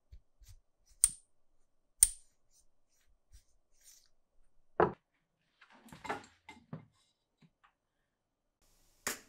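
Steel parts of a monkey wrench clicking and knocking together as the two jaw pieces are slid onto and off their guide pins: two sharp metallic clicks about a second apart, a duller knock near the middle, a short clatter of smaller knocks, and one more click near the end.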